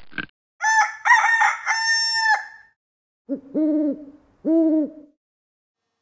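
A rooster crowing once, a cock-a-doodle-doo of about two seconds, then an owl hooting: a short note followed by two longer ones.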